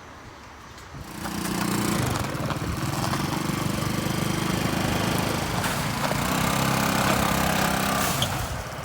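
Small 170cc go-kart engine running after its carburettor was cleaned, warming up. It comes up loud about a second in, changes speed a few times, and drops back near the end.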